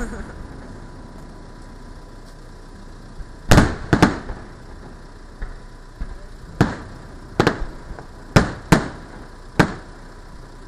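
Aerial firework shells bursting in an irregular series of sharp bangs, each with a short echoing tail: a loud pair about three and a half seconds in, then five more over the following six seconds.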